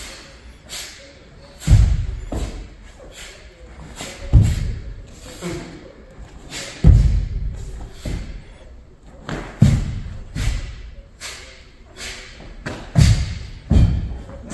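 Bare feet stamping and landing hard on a wooden floor during a karate kata: about six heavy thumps a couple of seconds apart, two in quick succession near the end, with lighter knocks and shuffles between them.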